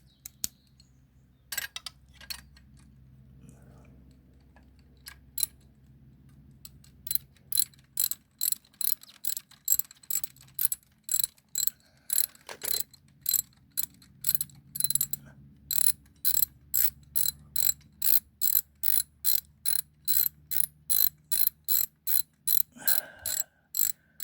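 Hand ratchet wrench clicking as a bolt of the engine-mounted U-lock bracket is wound in. After a few scattered clicks and taps, the clicking settles into an even run of about two to three clicks a second.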